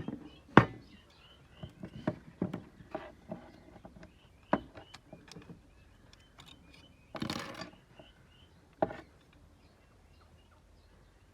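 Irregular clicks and knocks of tools and small parts being handled during a workshop repair, a few with a brief ring, and a short noisy burst about seven seconds in.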